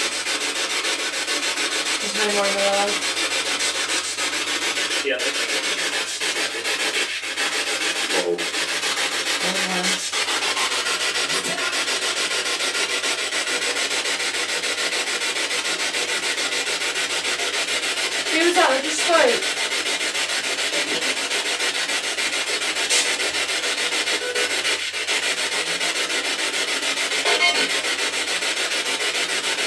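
Steady hiss of radio static from a spirit box sweeping through stations, broken by brief snatches of pitched broadcast sound, with a short wavering fragment about two-thirds of the way through and a few faint clicks.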